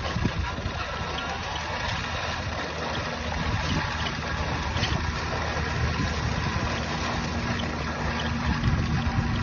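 RC pickup truck driving on pavement, heard from a camera riding on the truck: a steady low hum from its drivetrain and tyre rumble, with wind rushing over the microphone.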